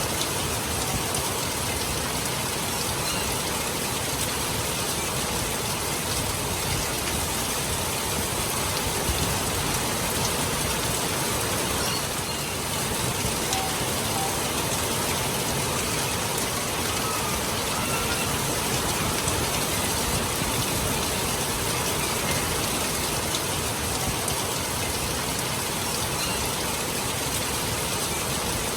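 Steady rain falling and pattering on surfaces, an even hiss with no pauses.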